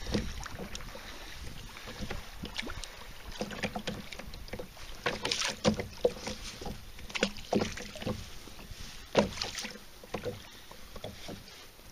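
Irregular clicks and knocks of a fishing rod and spinning reel being handled on a plastic sit-on-top kayak, over a low rumble of wind on the microphone.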